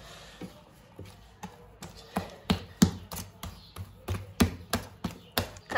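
A hand slapping and beating a wet, sticky sfenj (Moroccan doughnut) yeast dough: a run of short wet slaps, about three a second, faint at first and louder after about two seconds. The dough is rising and turning stretchy, and the beating works air bubbles through it.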